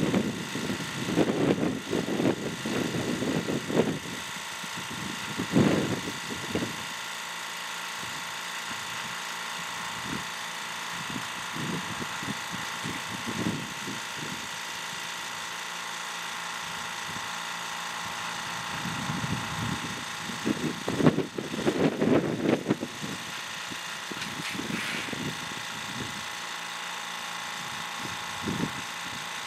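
Fortress 2-gallon, 1.2-horsepower tank air compressor running steadily with a constant whine while it pumps air into a Jeep tire through its coiled hose. Low, gusty rumbles come and go in the first few seconds and again about twenty seconds in.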